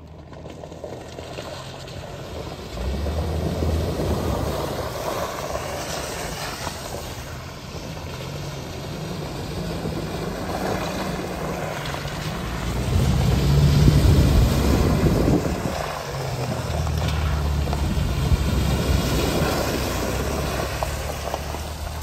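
Convoy of SUVs, among them a UAZ Patriot and a Renault Duster, driving one after another through a shallow river ford: engines running, with water sloshing and splashing from the tyres. The nearest vehicle passes loudest about 13 to 15 seconds in.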